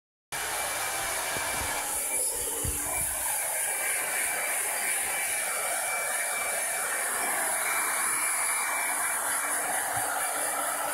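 Hand-held hair dryer running with a steady airy whoosh and a thin whine, with a few low knocks in the first few seconds.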